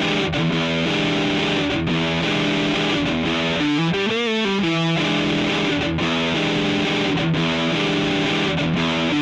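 Background rock music led by a distorted electric guitar, playing a phrase that repeats about every five seconds.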